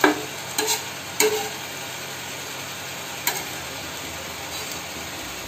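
Flat iron kothu parotta blade striking an iron dosa griddle, chopping parotta: four sharp metallic clacks with a short ring, three in the first second and a half and one about three seconds in, over a steady low frying hiss.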